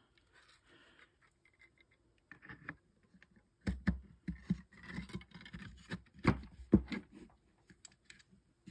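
Parts of a Byrna TCR launcher, polymer frame and metal air chamber, knocking, clicking and rattling against each other as the air chamber and stock assembly are worked into the receiver. Scattered light clicks lead into a run of sharp knocks from about three and a half seconds in, the loudest two just after six seconds.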